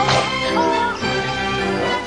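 Background music with held chords, and a short wavering melody line over it about half a second in.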